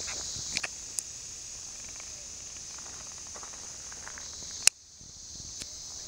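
Steady, high-pitched rainforest insect chorus, with a few sharp clicks. One loud click comes about three-quarters of the way through, after which the sound drops out briefly and comes back.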